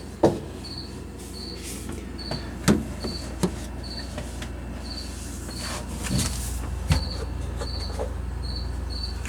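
Refrigerator doors and fittings being handled, knocking and clunking several times, the sharpest near the start. Under it a steady low hum and a cricket chirping about twice a second.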